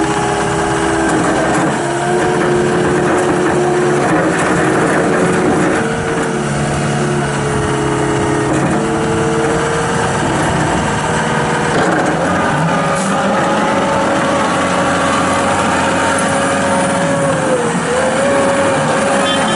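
John Deere 331G compact track loader's diesel engine running steadily, its pitch shifting a few times as the machine is driven and worked.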